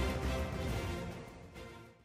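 Background music fading out, growing steadily quieter to the end.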